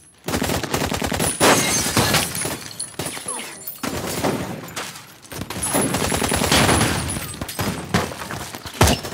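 Heavy gunfire: long volleys of rapid shots, easing briefly about three and a half and again about five seconds in before resuming.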